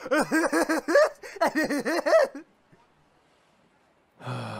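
A character's voice laughing in quick, evenly repeated "ha" syllables for about two seconds, then a pause, and a low sigh starting near the end.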